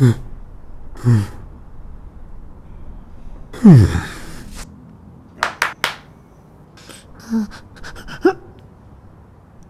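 A cartoon character's voice gasping in short breaths, each dropping in pitch, then a louder, longer falling groan about four seconds in. A quick run of sharp clicks follows, with a few more short clicks and vocal sounds near the end.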